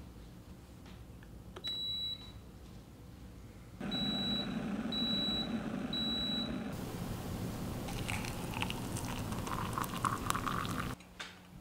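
Digital electric kettle beeping once, then water in it rumbling near the boil while it beeps three times about a second apart; hot water is then poured from it into a ceramic mug, splashing, and stops near the end.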